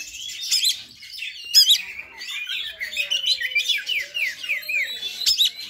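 Oriental magpie-robin (kacer) singing its aggressive fighting song: rapid runs of falling whistled notes, several a second, broken by sharp loud chips.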